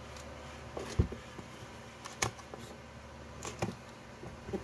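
Cardboard drill box being handled and set down on a table: a few knocks and scrapes, the loudest about a second in, over a steady low hum.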